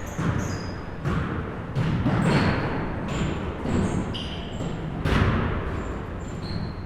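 A basketball bouncing irregularly on a gym floor, the hardest bounce about five seconds in, with sneakers squeaking in short high chirps between the bounces.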